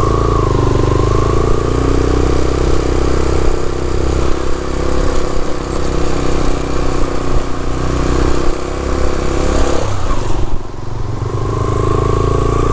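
Motorcycle engine running steadily while riding on a rough gravel road, with wind and road noise mixed in. The sound breaks briefly about ten seconds in, then carries on the same.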